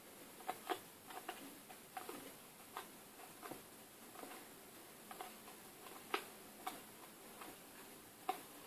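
Match Attax football trading cards being flicked through by hand, one card slid off the stack after another: light irregular clicks and snaps, roughly one or two a second, some sharper than others.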